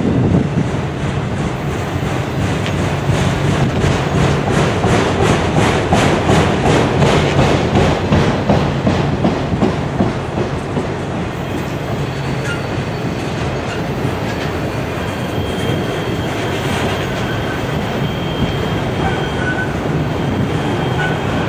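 Autorack freight cars rolling past, their steel wheels running on the rails with a rapid rhythmic clickety-clack that is strongest in the first half. A faint thin high tone sounds in the later seconds.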